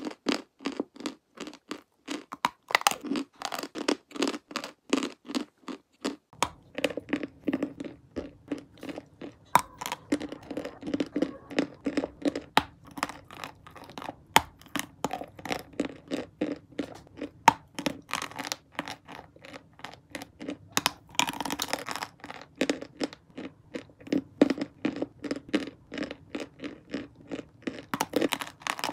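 Close-miked chewing of dry white chalk: crisp crunches, about two to three a second, as lumps are bitten off and ground between the teeth.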